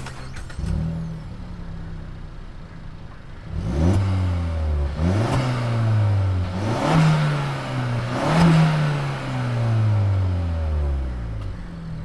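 Suzuki Swift Sport ZC33S's 1.4-litre turbocharged four-cylinder through a Max Racing valved cat-back exhaust with the valve closed: idling steadily, then revved four times from about three and a half seconds in, each rev rising quickly and falling back, the last one sinking slowly to idle.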